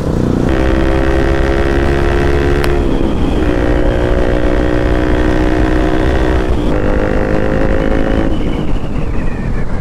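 Bajaj Pulsar RS200's single-cylinder engine accelerating hard through the gears. Its pitch climbs in each gear and drops at upshifts about three seconds in and again about six and a half seconds in, then it eases off near the end, with heavy wind noise throughout.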